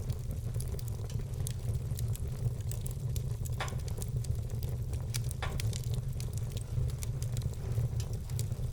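Wood fire burning in a fireplace: a steady low rumble with frequent small crackles and two louder pops, about three and a half and five and a half seconds in.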